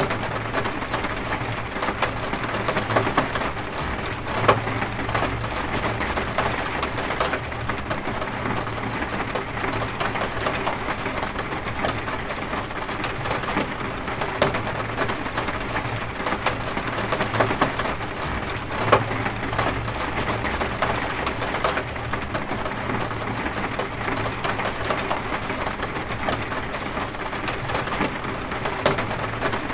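Steady rain falling, a dense hiss full of tiny drop ticks, with a low hum that comes and goes underneath.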